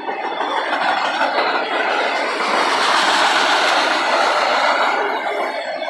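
Autorack freight cars rolling past on steel wheels and rails, a loud continuous rumble that swells to its peak about three to four seconds in and eases off toward the end.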